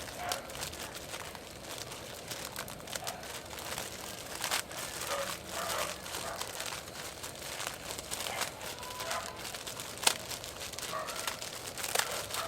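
Irregular crinkling and rustling with scattered small clicks, as of something being handled, with one sharper click about ten seconds in.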